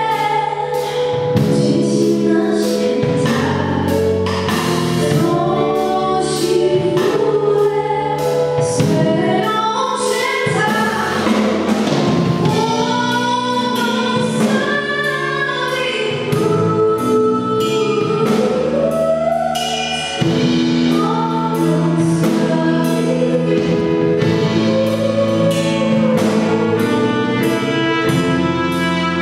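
Live vocal band performing a Polish Christmas carol (kolęda): several voices singing together over a steady drum beat, amplified through a sound system.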